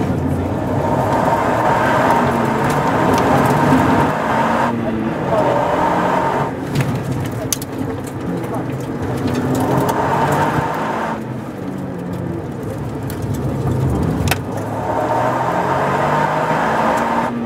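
Toyota GR Yaris's turbocharged 1.6-litre three-cylinder engine, heard from inside the cabin, pulling hard with road and tyre noise. Its note drops back twice, about five and eleven seconds in, before picking up again. A few sharp clicks are heard over it.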